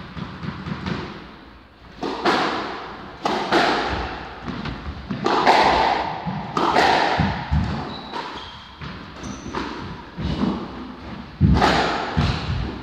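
Squash rally: the rubber ball struck by the rackets and smacking off the court walls, sharp hits often in quick pairs about every second or so, each echoing around the court. A few brief squeaks of shoes on the wooden floor come in the middle.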